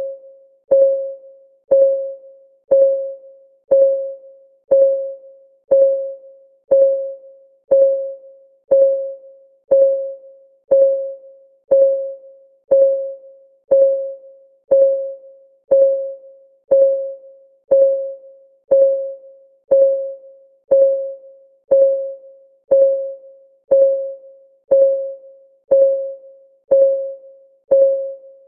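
Clock ticking for a countdown timer, one tick a second, each tick a short pitched tone that dies away quickly.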